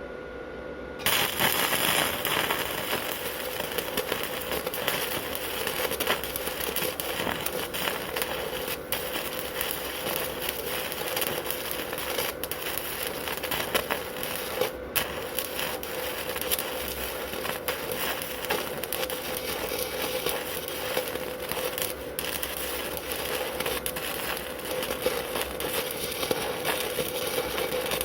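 Stick-welding arc from a Wert SWI 190 welder burning a 2.5 mm basic-coated (MTG-01K) electrode at about 60 A. The arc strikes about a second in, then crackles steadily with a dense run of small pops.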